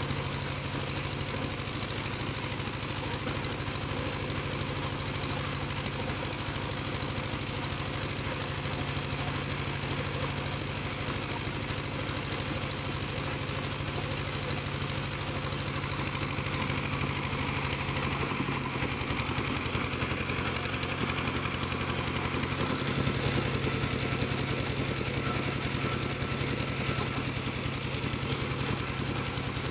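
Engine of a piling rig running steadily, with a shift in its sound a little past halfway and a slight rise in level a few seconds later.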